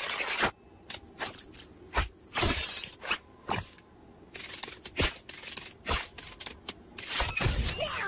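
Cartoon sound effects: an uneven series of sharp crashes and clattering knocks, like things breaking, with a louder, longer crash about seven seconds in.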